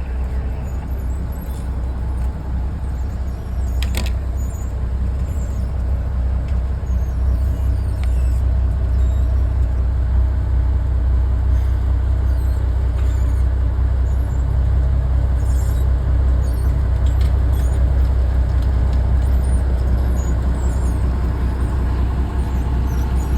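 Train running slowly over a newly replaced railroad switch frog: a steady low locomotive rumble that builds gradually, with a sharp click about four seconds in.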